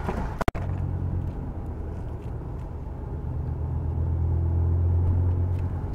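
Low, steady running drone of a Vauxhall Cavalier's 3.0 V6 (X30XE) on the move. It cuts out for an instant about half a second in, then swells louder from about four seconds in and eases slightly near the end.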